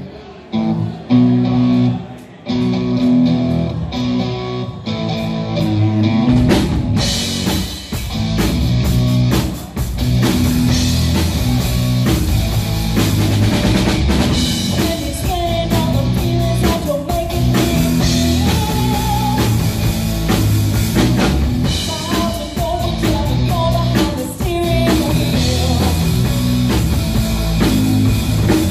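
Live rock band playing loud: electric guitar chords at first, then drum kit and guitars come in together about six seconds in, with a woman singing over the band.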